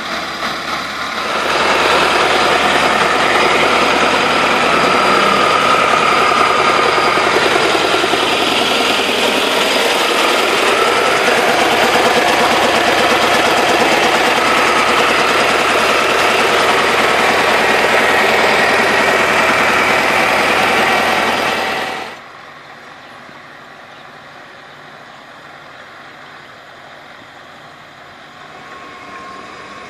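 Turbocharged air-cooled diesel engine of an LTZ T-40 tractor running, loud and close for about twenty seconds, then suddenly much quieter and farther off for the rest.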